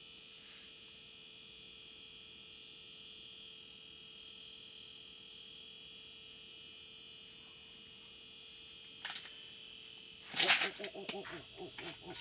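A faint, steady high-pitched whine. About ten seconds in comes a short click, then a sudden loud clatter and rustling as someone moves about.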